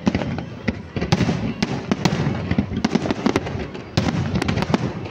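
Aerial fireworks display shells bursting in a dense run of sharp bangs, one to three a second.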